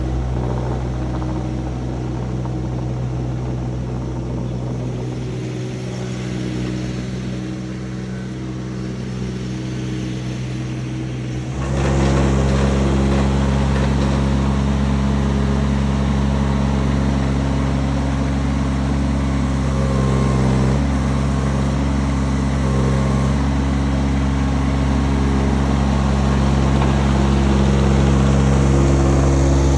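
Kubota U35-4 mini excavator's diesel engine running steadily, then stepping up in speed and loudness about twelve seconds in and holding there.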